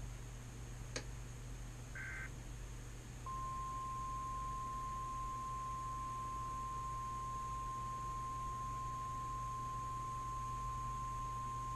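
Emergency Alert System relay: a click, a brief two-pitch data warble from the SAME header, then the single steady NWS 1050 Hz alert tone starting about three seconds in and holding, over a low hiss and hum.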